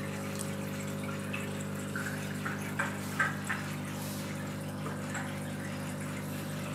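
Aquarium equipment running: a steady low hum with water bubbling and trickling from the airstones and filters, and a few faint pops of bubbles in the middle.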